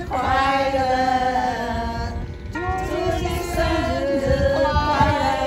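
A group of women singing a song together in unison, with long held notes.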